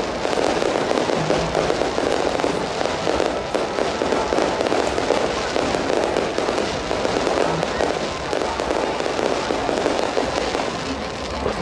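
Fireworks crackling and popping in a dense, unbroken stream as aerial bursts go off one after another.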